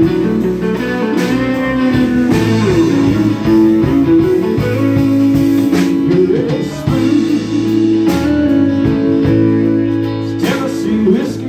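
Live band playing: electric guitars, electric bass and drum kit, with a man singing.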